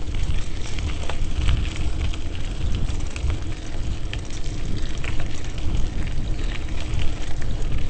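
Wind buffeting the microphone of a moving camera, a steady low rumble with a crackling hiss and scattered clicks over it.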